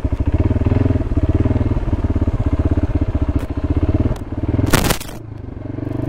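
Kawasaki Brute Force 300 ATV's single-cylinder four-stroke engine running with a steady pulsing beat as it works through snow. About five seconds in there is a short, loud scrape, and then the engine drops back to a quieter idle.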